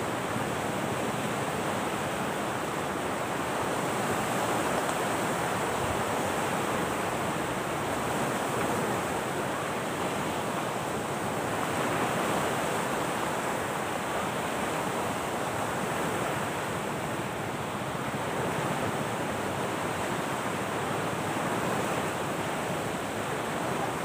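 Steady rushing of surf on the shore, swelling and easing every few seconds.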